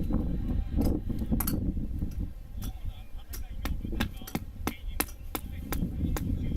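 Firewood being split by batoning a knife: sharp knocks repeating about three times a second, over a low rumble.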